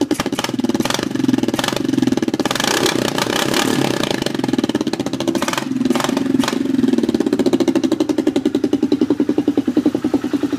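Suzuki Vinson 500 ATV's single-cylinder four-stroke engine running with a rapid, even exhaust beat, revved up a few times in the first six seconds. It has just been restarted after being swamped, with the water drained from it.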